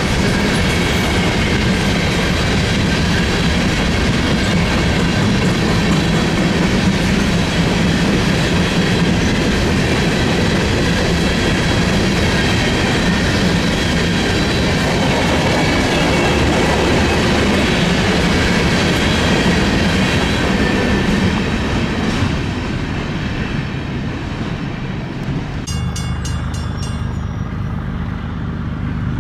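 Freight train rolling past, a steady loud rumble of cars on the rails. About three-quarters of the way through it drops abruptly to a quieter low drone with a short run of sharp clicks.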